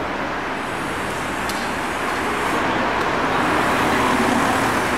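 Steady hum of distant road traffic, swelling slightly a few seconds in.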